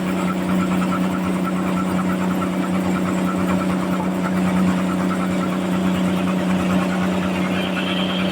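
Sawmill running steadily, a constant machine hum with one strong low tone.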